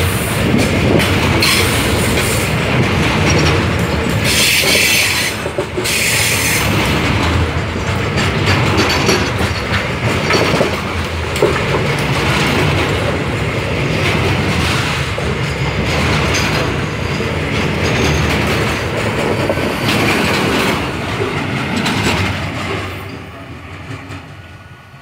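Freight train of covered hopper wagons rolling past close by: steady wheel rumble and clatter over the rail joints, with stretches of high wheel squeal. The sound fades away near the end as the last wagon passes.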